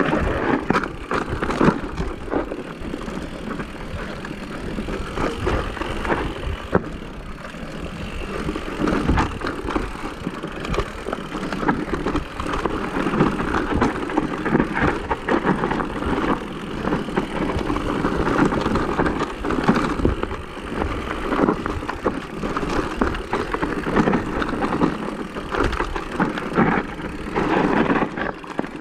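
Electric mountain bike riding down a rough dirt and stone singletrack: tyres rolling and crunching over the ground, with frequent knocks and rattles from the bike over bumps.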